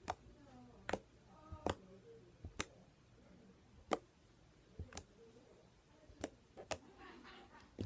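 Homemade slime being poked and squished, giving sharp clicks and pops at irregular intervals, about ten in all.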